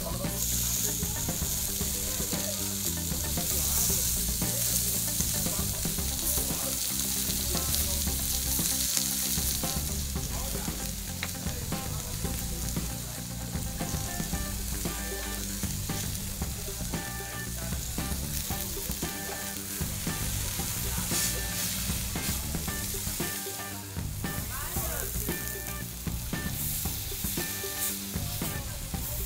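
Raw meat sizzling and frying on a hot flat griddle plate over a portable gas stove, the hiss swelling as fresh pieces are laid on, loudest in the first ten seconds.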